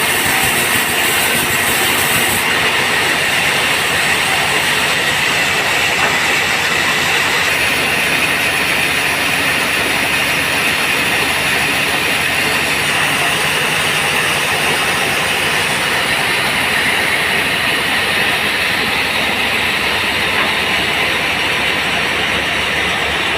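Band sawmill running steadily while sawing teak: a loud, even, continuous machine noise.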